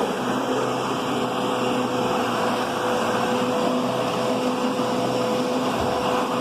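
Kenmore Progressive canister vacuum, a Panasonic-built machine, running steadily while in use: an even rush of motor and airflow with a constant mid-pitched whine.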